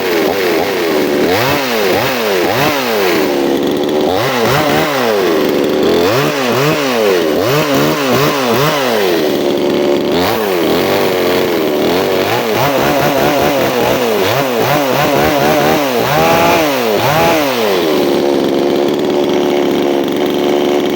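Chainsaw engine revved up and down over and over, its pitch rising and falling in quick swells, then holding at a steady speed for the last few seconds.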